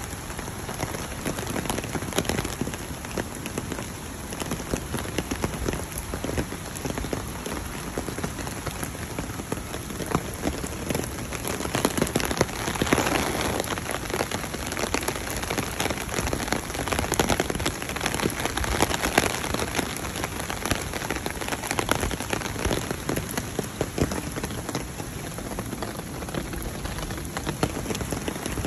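Steady rain falling, a dense patter of drops, somewhat heavier for a while around the middle.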